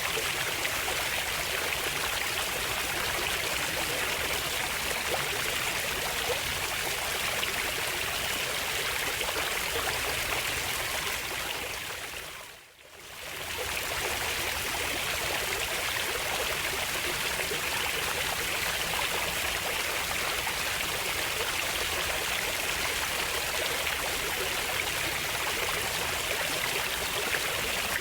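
Running water of a stream, flowing and trickling steadily, briefly fading out and back in about halfway through.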